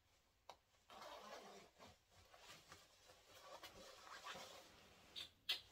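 Faint rustling and scratching of a nylon-shell jacket being put on and its front zipper pulled up, with a few soft clicks.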